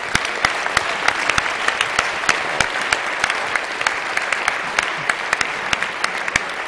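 Audience applauding: a steady spell of many hands clapping.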